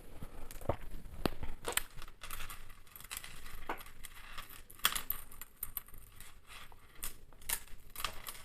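Handmade beaded necklaces being handled: beads and clasps clicking and jingling against each other in a scatter of small, irregular clicks.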